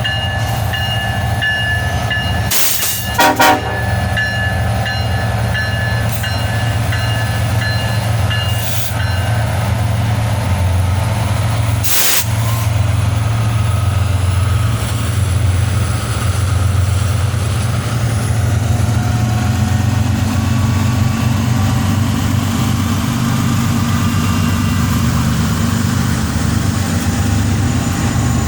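Freight locomotive horn sounding a held chord for the first several seconds over the low, steady drone of the diesel locomotives as the freight train starts moving. A brief loud burst comes about three seconds in, and a shorter one near the middle.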